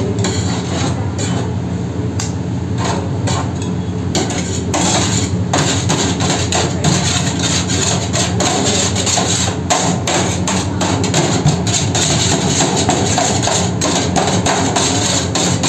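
Two flat steel shawarma spatulas chopping chicken on a stainless steel tray: rapid metallic clacking, denser from about four seconds in, over a steady low hum.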